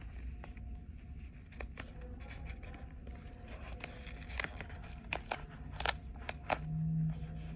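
Pink duct tape being pressed and smoothed onto the edge of a red craft-foam pouch: scattered small crackles and ticks over a low room hum.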